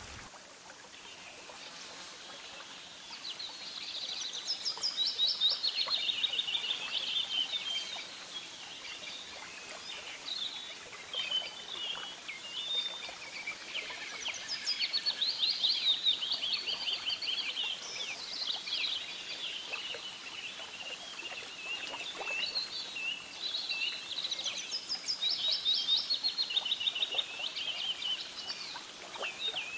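Birds singing: phrases of high repeated chirps and quick trills, one after another, over a steady background hiss.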